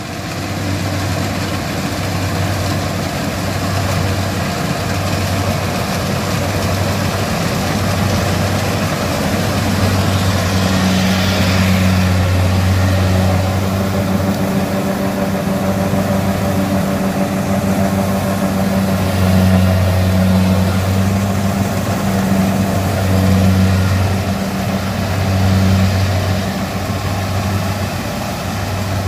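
Kubota DC70 combine harvester's diesel engine running steadily while harvesting rice. Its low hum swells and eases every couple of seconds, with a brief rise in hiss about eleven seconds in.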